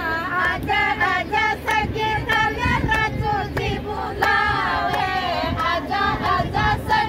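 Group of women singing a Rajasthani sithna, a teasing wedding folk song, together in unison, with a sharp beat keeping time under the voices.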